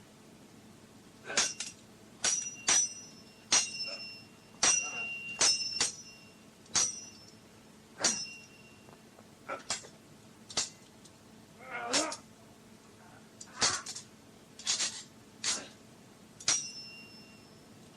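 Metal sword blades clashing in a fight: more than a dozen sharp strikes at an irregular pace, several of them ringing briefly, with one rougher, scraping clash about halfway through.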